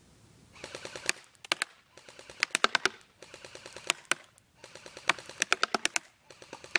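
CYMA RPK airsoft electric gun (AEG) firing full auto on a 9.6 V battery: several short bursts of rapid clicking shots with brief pauses between them.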